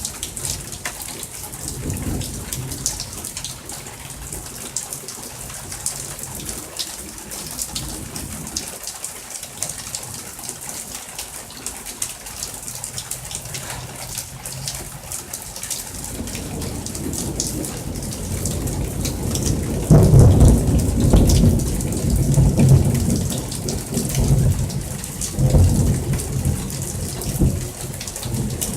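Heavy thunderstorm rain falling steadily, with many drops ticking on a nearby surface, and thunder rumbling. The thunder builds a little past halfway and is loudest about two-thirds of the way through, with further rolls near the end.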